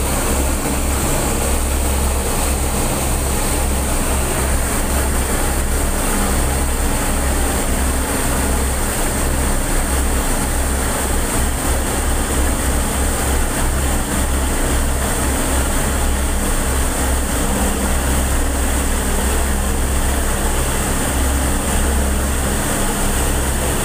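A ship's engines drone steadily under way, with the rush of the churning propeller wake behind the stern.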